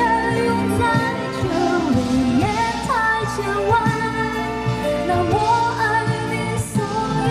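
A woman singing a Mandarin pop song into a microphone, her voice gliding between held notes over a steady instrumental backing.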